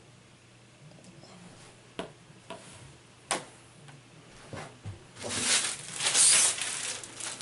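Posters and their plastic sleeves being handled: a few light knocks, then about two seconds of loud crinkly rustling of plastic and paper.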